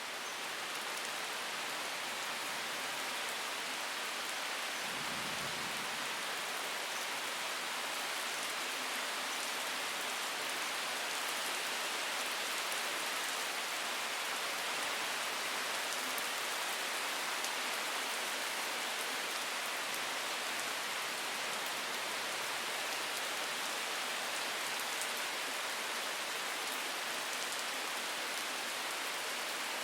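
Steady rainstorm falling in woodland, a dense hiss of drops with fine pattering ticks. A brief low rumble comes about five seconds in.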